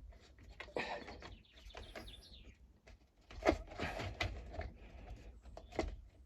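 Irregular clicks, knocks and short scrapes of parts being handled and fitted while a petrol hedge trimmer is put back together.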